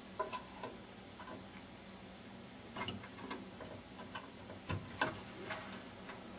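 Faint, scattered plastic clicks and taps as a RAM module is set into a motherboard memory slot and pressed down, with a sharper knock and clicks about three-quarters of the way through as it seats and the slot's plastic locking clips close.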